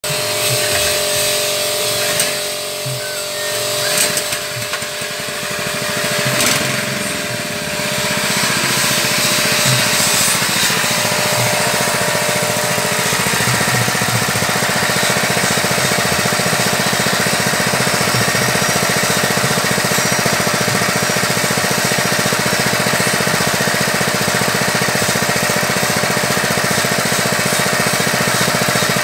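Small petrol engine of a fish-feed pellet machine running steadily at speed. A few knocks and rubs come through in the first several seconds.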